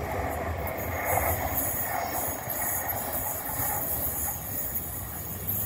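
Great Western Railway Intercity Express Train running away along the line: a steady rumble and rush of wheel and track noise, with no sharp clicks.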